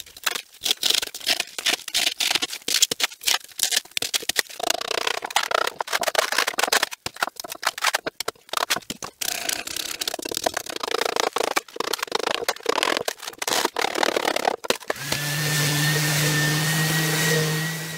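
Hammer repeatedly striking a chisel, chipping chunks of foamed casting resin out of a concrete bed, many quick, irregular knocks with scraping and crumbling of the pieces. About fifteen seconds in, this gives way to a random orbital sander running steadily on the bare concrete, a hum with a faint whine over it.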